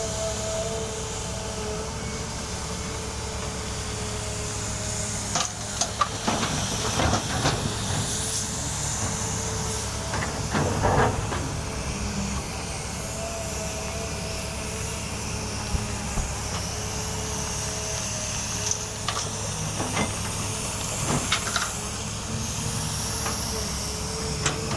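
Excavator running under load, a steady engine drone with a hydraulic whine and hiss, broken by clattering knocks and rattles from about five to eleven seconds in and again around twenty seconds in.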